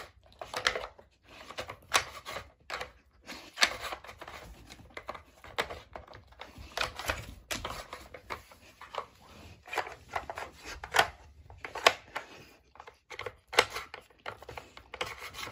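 Plastic treat-puzzle toy (Nina Ottosson MultiPuzzle) clacking and knocking as a German Shepherd nudges its turning disc and pieces with her nose: irregular clicks and knocks, a few louder ones, with some scraping in between.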